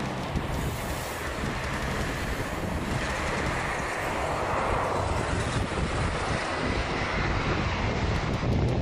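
Engines of a twin-engine jet airliner on final approach, a steady rumble that slowly grows louder as the plane comes nearer, with a faint whine joining in a few seconds in. Wind buffets the microphone.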